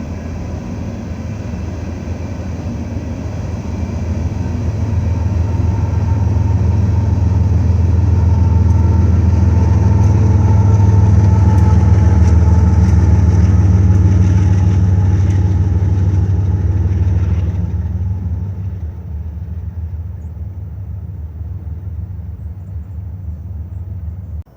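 BNSF diesel locomotives and a freight train passing with a deep rumble that swells to its loudest about halfway through, fades off after about two-thirds of the way, and cuts off suddenly at the end.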